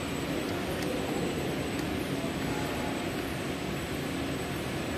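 Steady mechanical hum and noise of running machinery, with a few faint light clicks from handling metal parts.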